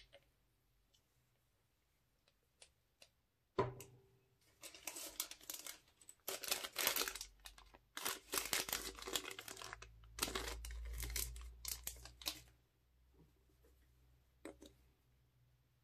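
Small clear plastic bag crinkling and tearing as it is opened and squeezed out over slime. A sharp click comes a few seconds in, then about eight seconds of dense crackling crinkle, with a few faint clicks near the end.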